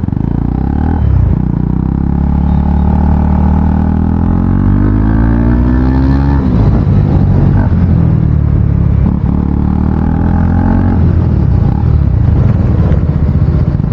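KTM Duke 250's single-cylinder engine with the exhaust silencer removed, running loud and deep as the bike is ridden. Its pitch climbs from about four seconds in, drops sharply a couple of seconds later, then rises and falls again near the end.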